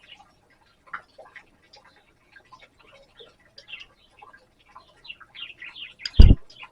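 Black redstarts giving short high chirps and ticking calls, scattered and faint, with more of them close together near the end. About six seconds in comes one loud, brief thump.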